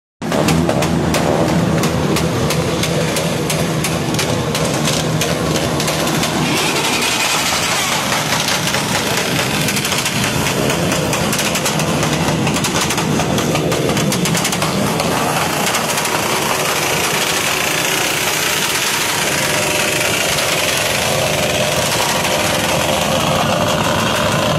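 Many small motorcycle engines running together in a packed group of bikes, a loud, continuous racket.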